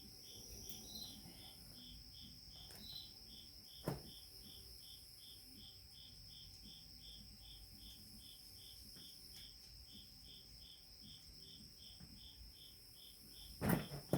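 Crickets chirping faintly and steadily, nearly three chirps a second, over a continuous high trill. A single sharp metallic click about four seconds in and a couple of louder tool clanks near the end.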